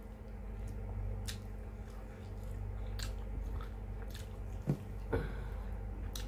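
Close-miked chewing and wet mouth clicks of a person eating paksiw na isda, fish stewed in vinegar. A few louder smacks come near the end, over a steady low hum.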